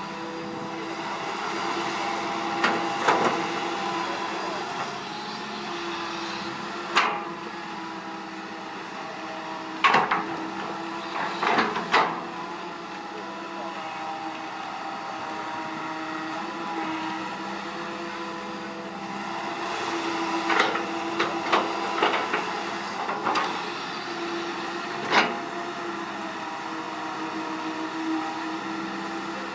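Komatsu PC160 hydraulic excavator's diesel engine running under load with a steady hydraulic whine that shifts slightly in pitch as the boom and bucket move. Sharp knocks come in clusters, about three seconds in, around seven to twelve seconds, at twenty to twenty-three seconds and once more near twenty-five seconds, as the bucket digs into the soil.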